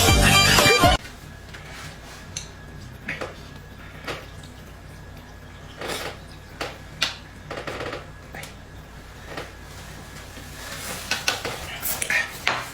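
Background music that cuts off about a second in, followed by scattered clinks and knocks of dishes and utensils being handled.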